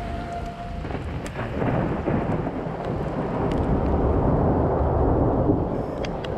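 A long roll of thunder that swells over several seconds and eases off near the end, over steady rain. A music track is cut off in the first second.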